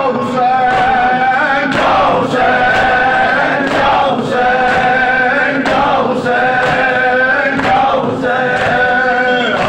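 A noha (Shia lament) chanted by a man into a microphone, with a group of men joining in chorus on long held notes in a phrase that repeats about every two seconds. Regular chest-beating slaps (matam) keep time underneath.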